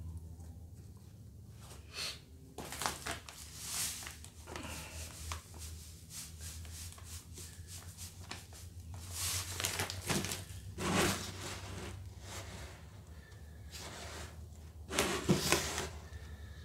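Salt poured from a bag onto prawns in a plastic container, in several short grainy pours, with the bag rustling and a gloved hand scooping salt.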